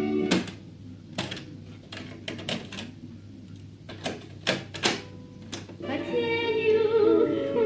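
About a dozen sharp, irregular mechanical clicks from the Hitachi TRK-3D30 radio-cassette recorder's controls being worked. About six seconds in, music with singing starts playing from the set's speaker.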